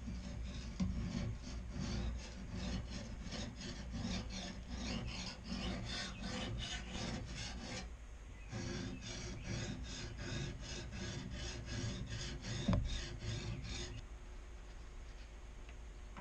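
Rhythmic rasping strokes of a hand tool, about three a second, in two runs with a short pause between them and one sharp knock near the end of the second run.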